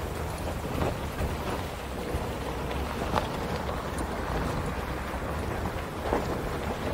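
Pickup truck driving on a dirt and gravel trail, heard from a camera on the cab roof: a steady rumble and hiss of wind and road noise, with a few short sharp knocks from the tyres or body going over stones and bumps.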